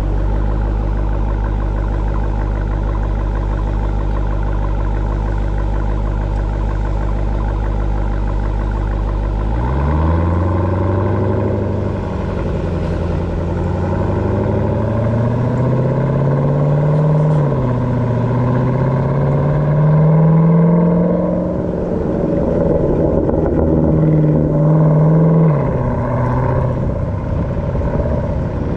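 2018 Jeep Grand Cherokee Trackhawk's supercharged 6.2-litre V8 idling steadily, then, about ten seconds in, revving up and pulling away, its note rising and falling several times as it is driven.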